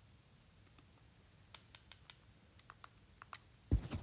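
Button presses on a handheld graphing calculator: a quick, irregular run of faint clicks as the function is keyed in, then one short louder thud near the end.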